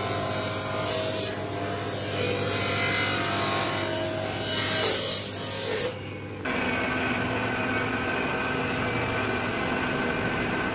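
Crankshaft grinding machine running: a steady motor hum with a rushing, filing-like hiss from the spinning grinding wheel. The sound dips briefly about six seconds in, then resumes with a slightly different tone.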